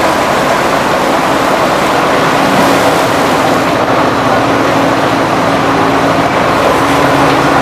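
Sugarcane crushing mill machinery running: a loud, continuous mechanical din with a steady low hum.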